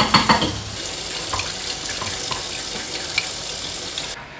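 Kitchen mixer tap running steadily into a stainless steel sink while potatoes are peeled under the stream. There is a short clatter at the start and a few light clicks. The water sound cuts off suddenly near the end.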